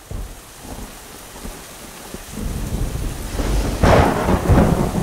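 Thunderstorm sound effect: rain with a rumble of thunder that builds over the second half and peaks in a loud crack just under four seconds in, followed by a second strong roll.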